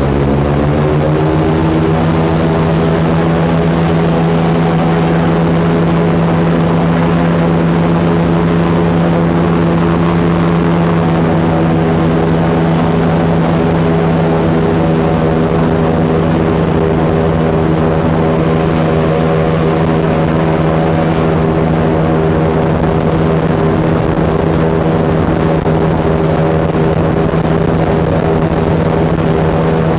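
Airboat's engine and air propeller running at speed. The pitch climbs over the first second or so as it speeds up, then holds steady.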